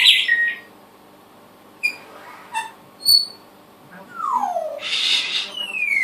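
Pet birds making whistled sound effects: a sharp falling whistle at the start, a few short high chirps and clicks, a harsh squawk about five seconds in, then long falling whistles.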